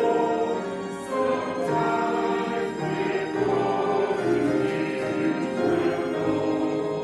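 A choir singing a slow hymn in long held notes.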